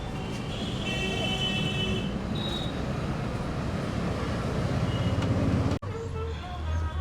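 Steady road traffic noise, with a few brief high tones. About six seconds in it cuts off abruptly into background music with a low hum.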